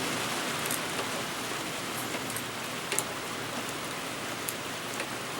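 Steady hiss of rain drumming on a tin roof, with a few faint sharp drop ticks.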